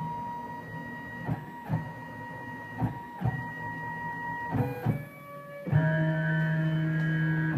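Stepper motors of a Creation Station CNC router whining at steady pitches as the axes move. A few short clicks come in the first half, and the pitch jumps several times in the second half as the moves change.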